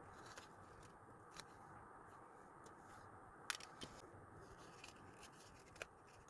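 Faint, scattered clicks and taps of stickers and paper being handled, the sharpest about three and a half seconds in and another near the end, over a steady low hiss.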